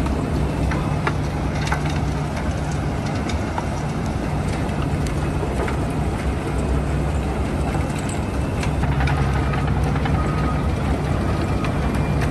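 Bucket wheel excavator at work, its wheel turning and cutting into the pit: a steady low machinery hum with scattered clanks.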